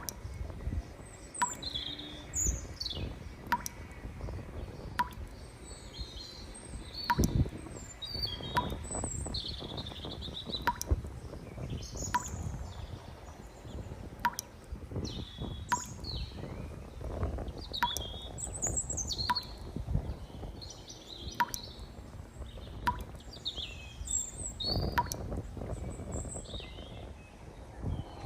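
Small birds chirping and trilling in short, scattered calls. A sharp click repeats about every one and a half seconds over a low, uneven rumble.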